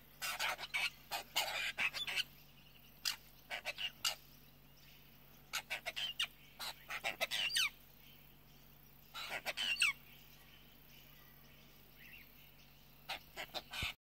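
A small group of apostlebirds giving short calls in scattered bursts. A few quick pitch glides come about nine to ten seconds in.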